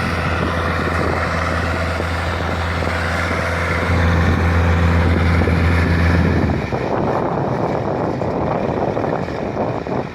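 An engine running with a steady low hum. About two-thirds of the way through, the hum drops out and a rough rushing noise takes over.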